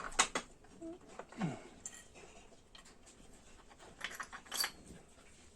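A few light metallic clicks and clinks of small engine parts being handled while the camshaft and timing-chain sprocket are fitted to a motorcycle cylinder head. There are two clicks near the start and a quick cluster about four seconds in.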